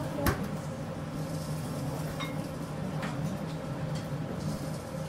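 Commercial kitchen background: a steady low hum with one sharp knock just after the start and a few lighter clicks of dishes and utensils.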